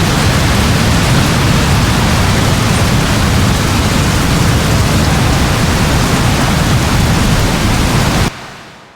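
Steady heavy rainfall in a forest: a dense, even hiss with a strong low rumble. It stops abruptly about eight seconds in, leaving a short fading tail.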